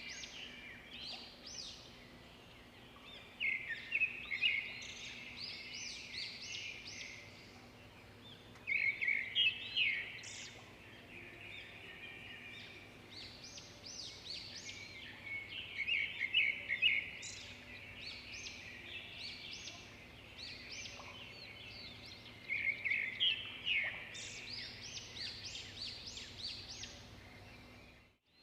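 Birds chirping in quick bursts of short high notes that recur every few seconds, over a faint steady hum.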